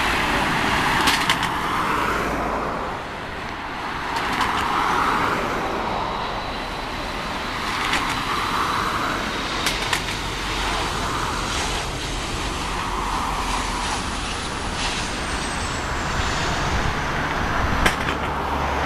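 Four-engine BAe 146-family regional jet on short final and touchdown: a steady jet rumble with a thin high whine that falls in pitch as the aircraft passes, near the end. Gusts of wind swell on the microphone every few seconds, with a few sharp clicks.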